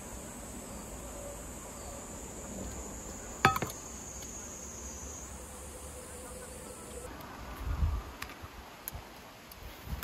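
Steady high-pitched insect drone that drops away about seven seconds in. A single sharp clink of metal chopsticks against a steel cup comes about three and a half seconds in, and a soft low thump near the end.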